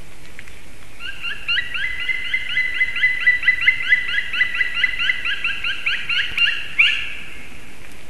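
Black woodpecker giving its loud 'kwee-kwee-kwee' call: a fast run of rising notes, about four a second, starting about a second in and ending near seven seconds with one louder note. It is probably a territorial call.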